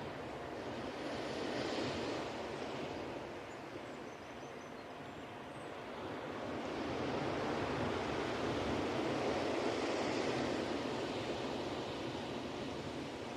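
Ocean waves washing onto a beach: a steady rush of surf that swells about two seconds in, eases off, then builds into a longer surge through the middle of the stretch.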